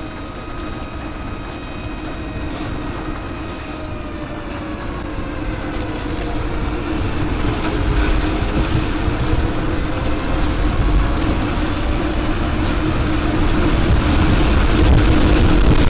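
Roar of an approaching tornado: a deep rumbling roar that grows steadily louder and then cuts off suddenly, with a slow wailing tone falling and rising in pitch beneath it.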